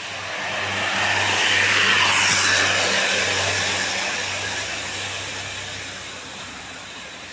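A road vehicle passing close by: a rush of tyre and engine noise that swells to its loudest about two seconds in and then fades away.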